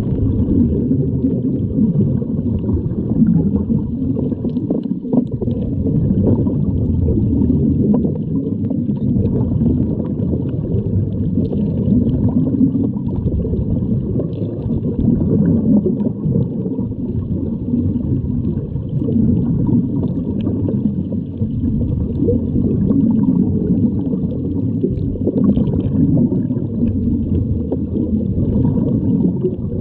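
Underwater sound picked up through a diving camera's housing: a steady, muffled low rumble of water with gurgling from scuba divers' exhaled bubbles, rising and falling a little.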